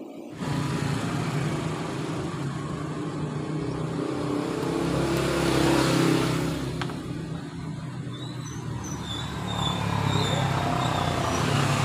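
A motor vehicle engine running nearby, swelling about six seconds in and again near the end.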